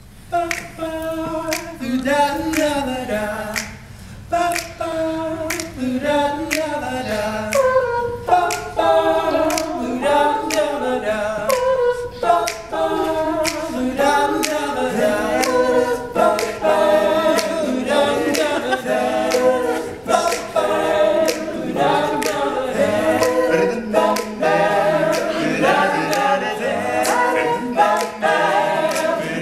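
All-male a cappella group singing a wordless instrumental-style intro in close, layered harmony, with sharp clicks keeping the beat.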